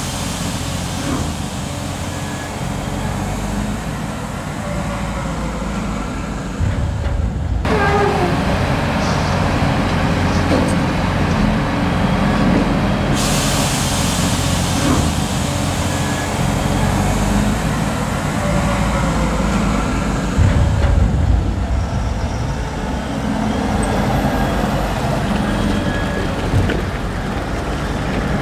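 Diesel engines of a wheel loader and tractors working a maize silage clamp, running steadily, with the engine note rising and falling about a quarter of the way in.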